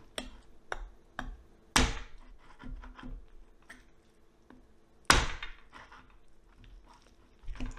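Kitchen knife chopping into a roasted lamb head on a cutting board. There are two hard chops about three seconds apart, with lighter knocks between them.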